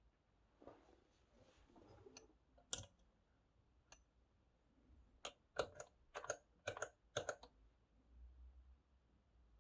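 Near silence broken by faint sharp clicks: a single one about three seconds in, then a quick run of about six, roughly half a second apart, in the second half.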